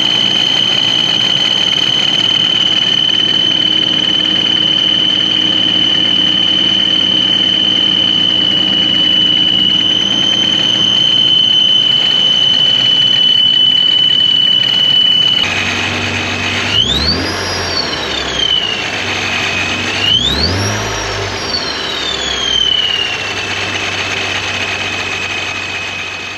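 A ProCharger centrifugal supercharger on a Toyota Tacoma's engine, idling with a steady high whine over the engine hum. Twice, about two-thirds of the way through, the engine is revved and the whine climbs sharply in pitch, then falls back to idle.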